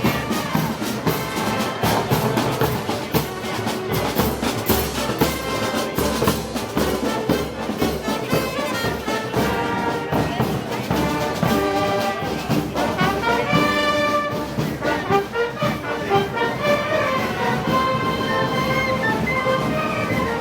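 A festival brass band of trumpets and trombones playing a march, over a steady drumbeat.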